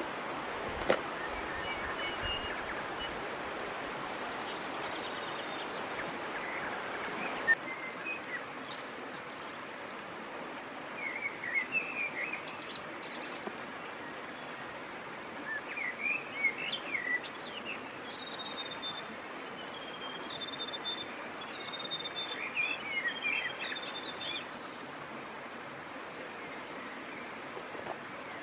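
Steady rush of a shallow stream flowing over stones, which drops suddenly with a sharp click about seven seconds in after an earlier click. Small birds chirp and call in several short bursts through the second half, including one longer trill.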